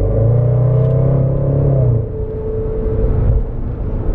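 Range Rover Sport SVR's supercharged V8, heard from inside the cabin, pulling under throttle with its pitch creeping up, then easing off about two seconds in to a lower steady drone.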